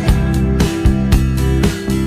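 Background music with a strummed guitar and a steady beat.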